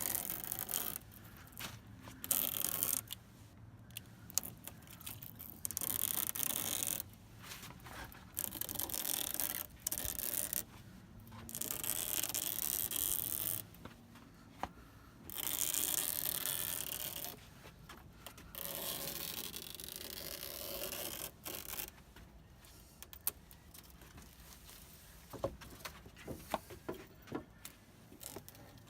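A knife scraping along a screen door's frame as it trims off excess metal screen mesh, in repeated strokes of one to three seconds each. Near the end, scattered light clicks and taps follow.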